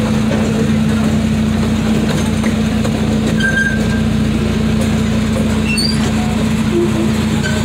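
Miniature amusement-park train's engine running steadily under way, a constant low hum heard from the car behind the locomotive.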